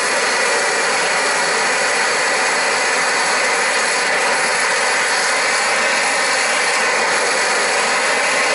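Handheld propane torch blowing a steady, loud jet flame into a grill full of charcoal to light it.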